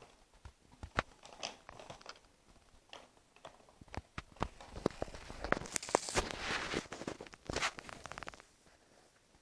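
Paper bag rustling and crinkling as a kitten moves about inside it, with scattered light taps. The crinkling grows busier from about four and a half to eight and a half seconds in.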